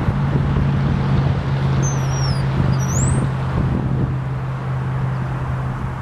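A steady low hum of a running engine with outdoor noise, and about two seconds in two short high whistled bird calls, the first sliding down and the second sliding up.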